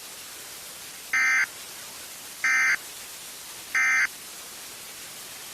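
Emergency Alert System end-of-message signal: three short electronic data bursts, about a second and a half apart, marking the close of the alert broadcast.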